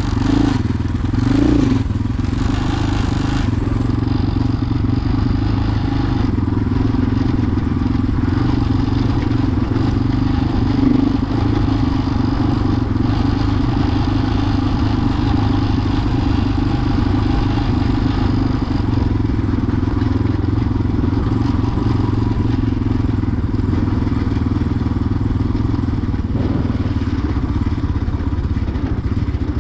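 Vehicle engine running steadily on the move, with an even drone and road noise.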